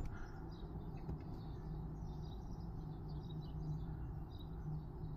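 Low, steady hum of a small under-counter freezer's compressor running just after being plugged in and starting up. Faint bird chirps sound over it.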